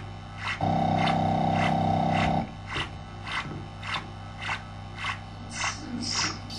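Experimental electronic noise music on a Korg MS-20 analog synthesizer: a steady low drone with a short hissing hit almost twice a second, a held buzzing chord for about two seconds near the start, and a noise sweep near the end.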